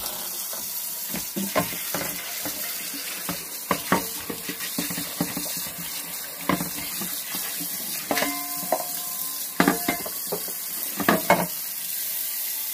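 Tap water running steadily into a sink while a stainless steel frying pan is scrubbed with a dish brush, with sharp clanks and knocks now and then as the pan and brush hit the sink, one clank ringing briefly.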